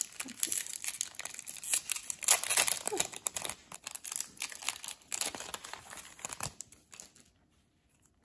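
Foil wrapper of a baseball card pack crinkling and tearing as it is pulled open by hand. The crackling dies away about seven seconds in.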